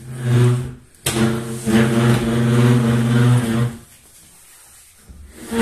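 A tall wooden wardrobe being pushed across a tiled floor, its base scraping and juddering with a low, steady droning hum. The scraping comes in two long shoves with a sharp knock about a second in, and goes quiet for about a second near the end before starting again.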